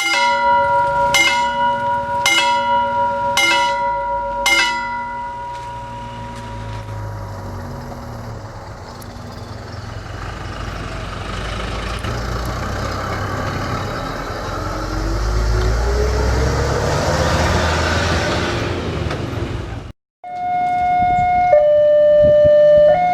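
Railway level-crossing warning signal: a ringing chime struck about once a second, five times, then the rumble of passing traffic with an engine rising in pitch. Near the end, after a brief break, the crossing's two-tone siren alternates steadily between a higher and a lower note.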